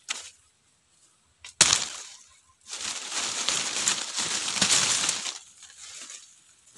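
Dry leaf litter crackling and rustling as hands work through it on the forest floor, after one sharp crack about a second and a half in.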